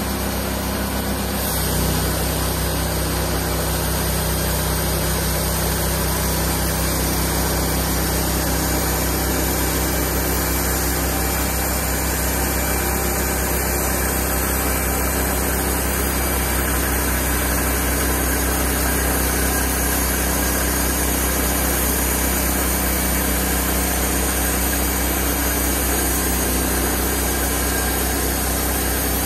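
Wood-Mizer LT28 portable bandsaw mill running steadily under power, its engine driving the band blade as the saw head feeds along the log through a cut. The sound steps up a little about a second and a half in, then holds steady.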